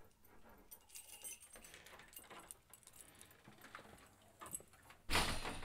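Keys jangling with small metallic clicks and ticks, then a sudden loud rush of noise about five seconds in that slowly fades.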